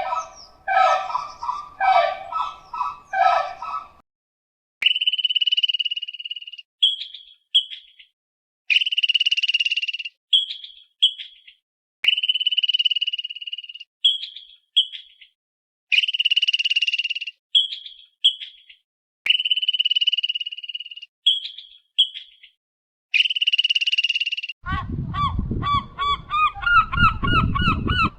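A string of spliced animal calls. First comes a quick series of short pulsed calls. Then a high trilled call about two seconds long, each time followed by a few short chirps, repeats about six times with clean silences between. Near the end geese start honking.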